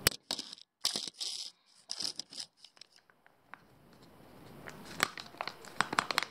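Pedigree wet dog food pouch crinkling and rustling as it is bent and squeezed, with a sharp click at the very start. Near the end the lamb chunks are pressed out into the dog bowl with a quick run of small wet clicks.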